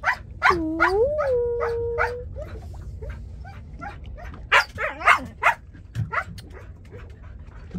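Siberian husky howling: one long call in the first two seconds that dips, then rises and holds steady. It is followed by a scatter of short sharp clicks over a steady low rumble.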